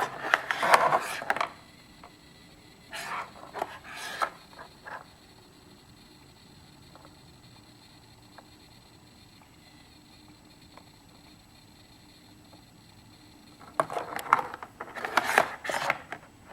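Typing on a CM Storm Quickfire Rapid mechanical keyboard with Cherry MX Brown switches: fast flurries of key clacks at the start and again a few seconds in, a long stretch with only a few single keystrokes, then another quick flurry near the end.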